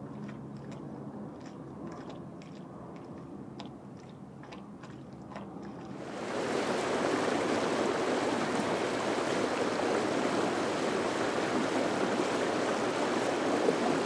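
Water rushing along the hull of a Hans Christian 43 ketch, a loud steady hiss from the bow wave that comes in about six seconds in. Before that there is a quieter low hum with a few light clicks.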